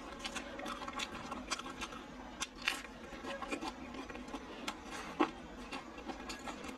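Close-miked chewing of a dry, over-fried breaded chicken cutlet: irregular crunches and wet mouth clicks, with a sharper crunch about five seconds in.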